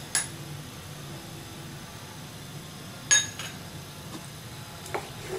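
A metal spoon clinking against a steel container as salt is spooned out for the curry: one bright ringing clink about three seconds in, a smaller one just after, and light taps at the start and near the end, over a low steady background.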